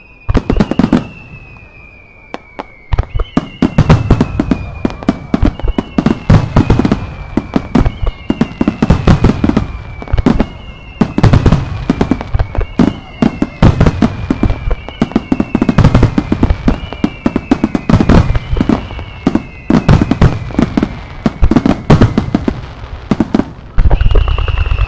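Starmine fireworks being fired in rapid succession: loud sharp bangs of bursting shells over a run of whistles, each sliding down in pitch, one starting about every second and a half. A short lull comes a second or two in, then the barrage picks up again.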